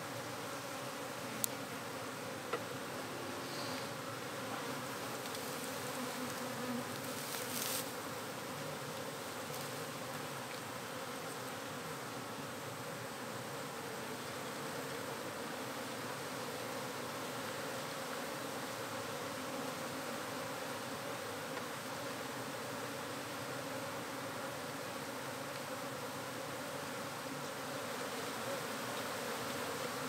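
A large colony of honeybees buzzing, a steady dense hum. A couple of faint clicks come early, and a brief rustle about eight seconds in.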